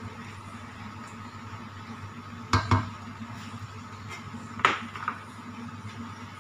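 Cooking spatulas knocking against a wok and being set down: a double clank about two and a half seconds in, then a sharp knock and a lighter one about two seconds later, over a steady background hum.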